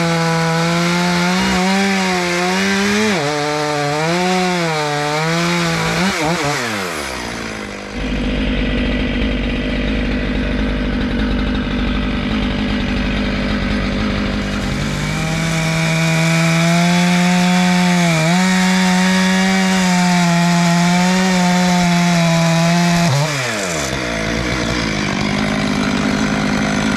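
Stihl chainsaw cutting into firewood rounds at high revs, its engine pitch wavering and sagging as the chain bites. It twice drops back off the throttle, and in between it runs lower and more steadily. The chain is cutting wood that has metal embedded in it, which dulls it.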